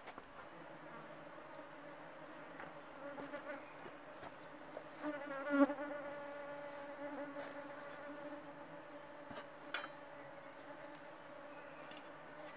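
A flying insect buzzing close by, its hum swelling loudest about five to six seconds in, over a steady high-pitched drone of forest insects. A few faint clicks of pot and utensils.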